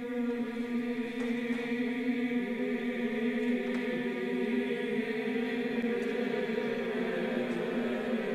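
A loud, steady droning hum of several held pitches layered together, sounding like a chanting drone.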